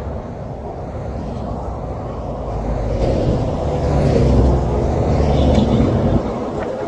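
Highway traffic going by, a steady road rumble with one vehicle passing close, growing louder about three seconds in and falling back near the end.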